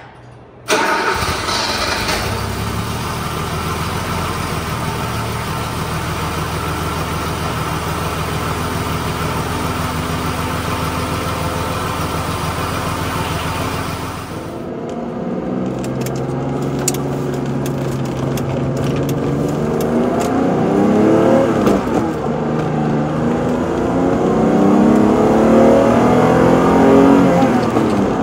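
1985 BMW M635CSi's 3.5-litre straight-six cold-starting, catching about a second in and settling into a steady idle. About halfway through, the sound changes to the engine pulling under acceleration, heard from inside the cabin. Its pitch climbs, drops back at a gear change, and climbs again.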